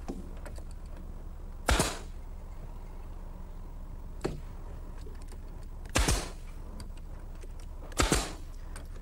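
Sharp strikes about two seconds apart, three loud and one fainter, each with a short ringing tail, as mitered 1x2 hardwood trim is fastened around the edge of a wooden shelf.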